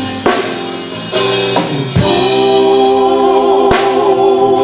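Male gospel vocal group singing with a band and drum kit behind them; about two seconds in the voices settle into a long held chord, with drum hits along the way.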